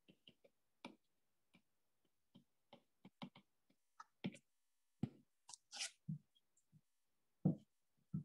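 Faint, irregular clicks and ticks of a stylus tip tapping on an iPad's glass screen while handwriting.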